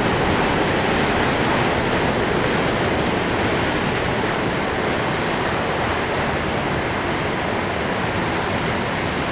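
Heavy storm surf breaking along a rocky shore: a loud, steady wash of breaking waves and churning water.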